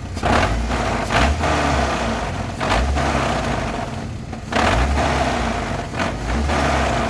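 1998 Chevy S10's 2.2-litre four-cylinder engine running without AC load and revved in about four short blips, carrying the knocking noise that the owner can't place between engine and transmission and suspects is a crank bearing.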